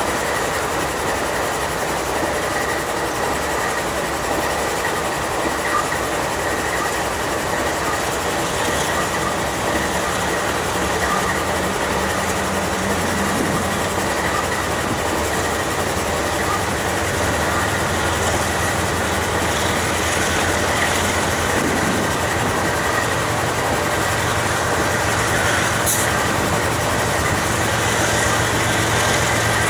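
Diesel freight locomotives of a CN-led train with BNSF power approaching and rolling past, their engines running as a low drone that grows louder over the second half. A thin steady high whine sits over the rumble of the train.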